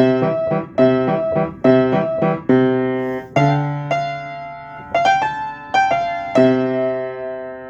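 Piano playing a repeating riff of struck chords over bass notes, some chords held and left to ring out and fade.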